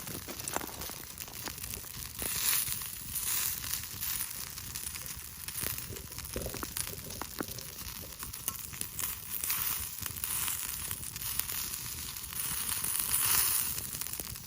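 Yakitori sizzling on a hot iron plate over a campfire: a steady frying hiss that swells and eases several times, with scattered small crackles and pops.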